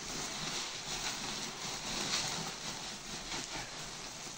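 Woven plastic feed sack rustling and dry feed being scooped out of it into a metal bucket by hand, a steady scraping rustle.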